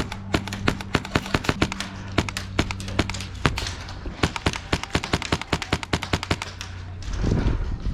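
Airsoft guns firing: a long, irregular string of sharp shots, some fired in quick bursts. A low rumble comes in near the end.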